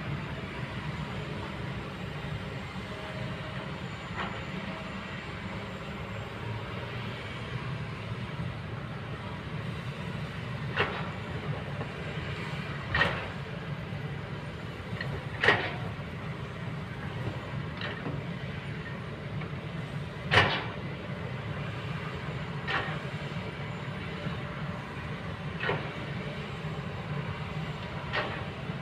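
Kobelco excavator's diesel engine running steadily at a low drone, with a sharp knock or clank about every two to three seconds from partway through as the machine works.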